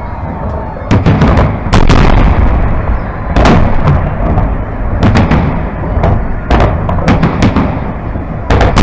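Fireworks salute: large aerial shells bursting in a rapid, irregular series of loud bangs, several in quick clusters, over a continuous low rumble.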